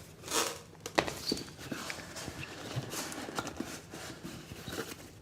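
Cardboard packaging being handled and opened: a brief sliding rustle, then a sharp knock and a string of light, irregular knocks and clicks.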